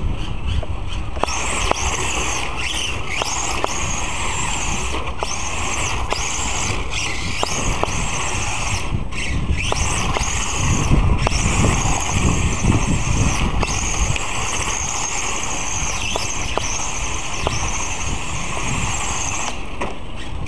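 Electric RC touring car driven by a Novak 13.5-turn brushless motor: a high whine that rises and falls as the throttle is worked, cutting out briefly a few times, over the rolling noise of its tyres on brick paving.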